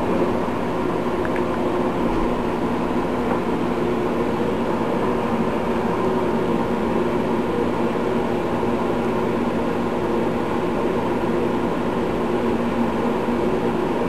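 Microwave oven running with a steady, even hum while it heats a 60-watt light bulb.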